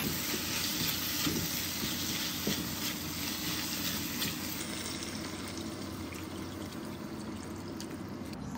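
Diced vegetables and Korean black bean paste sizzling in a wok as a spatula stirs them, with a few light clicks of the spatula against the pan. Later, water is poured in from a kettle and the sizzling eases off.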